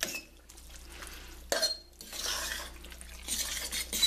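A metal fork stirring and tossing moist, saucy shredded chicken in a stainless steel pan: irregular wet squishing and scraping, with a sharp clink of the fork on the pan about one and a half seconds in.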